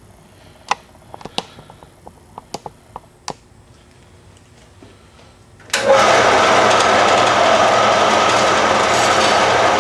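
A scatter of light clicks and knocks as the steel angle is handled and set in place, then about six seconds in a metal-cutting bandsaw switches on and runs loud and steady, its blade sawing through the steel angle iron.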